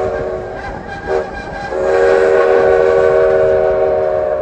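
Steam locomotive whistle blowing a chord of several steady tones. A long blast breaks off about half a second in, a short toot follows about a second in, and then a long blast starts and holds.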